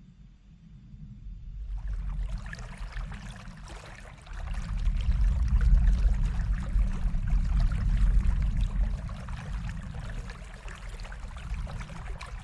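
River water flowing and babbling, fading in about two seconds in and swelling in the middle, over a steady low rumble.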